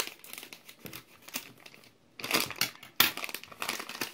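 Scissors snipping through a plastic mailer bag and the plastic crinkling and rustling as it is cut and pulled open, with a sharp click about three seconds in.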